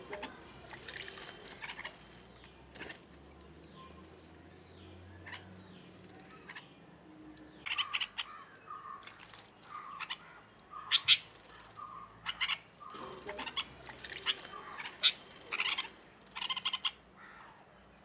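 Red-whiskered bulbuls bathing in a shallow clay bird bath: wing-fluttering splashes in the water, and from about eight seconds in a quick run of short chirping calls, with a few sharp louder splashes.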